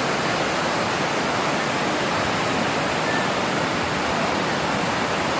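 Fast, turbulent mountain river (the Chegem) rushing steadily, an even roar of water.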